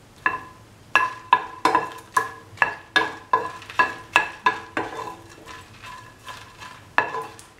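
A spatula stirring dry shrimps and red chillies in a pan, knocking against the pan with sharp strokes that ring briefly, about two to three a second, thinning out after about five seconds with one strong knock near the end.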